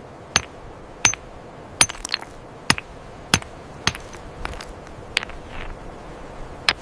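A series of sharp, clicking knocks of hard objects striking, about ten of them at uneven gaps of under a second, some in quick pairs.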